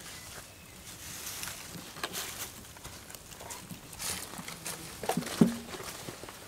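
Knife slicing roast meat and knocking against a wooden cutting board: scattered taps and short scrapes, with a louder knock about five seconds in.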